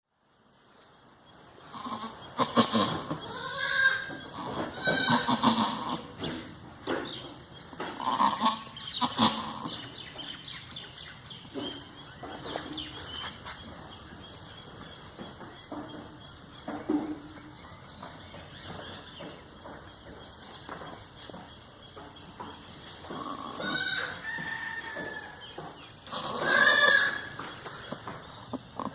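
Osmanabadi doe in labour bleating, repeated calls in bunches through the first ten seconds and again near the end, the loudest near the end. A fast, even ticking runs high in the background.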